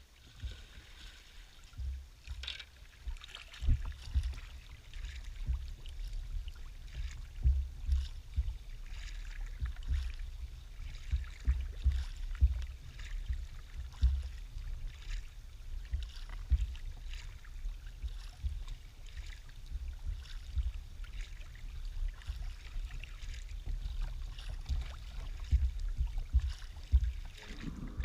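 Sea kayak being paddled, the paddle blades splashing into the water about once a second over a constant, uneven low rumble.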